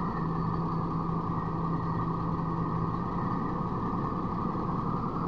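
Heavy diesel engine running steadily at idle, a constant even drone.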